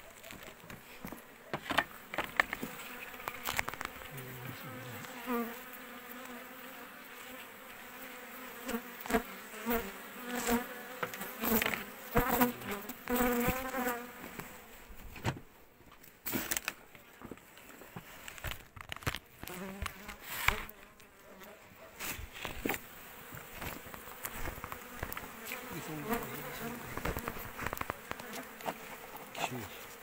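Honeybees buzzing close around an opened hive, a wavering hum that swells and fades and is loudest in the middle. Scattered knocks and rustling from handling sound through it.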